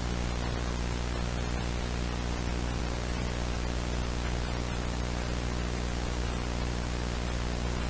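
Steady static hiss over a low electrical hum, unchanging.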